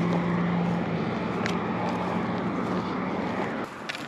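Road traffic on the adjacent road: a steady engine hum with tyre noise that drops away about three and a half seconds in.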